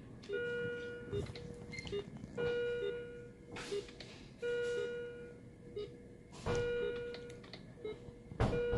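Philips bedside patient monitor alarm: a held beep repeating about every two seconds, with shorter, lower pulse beeps ticking in between.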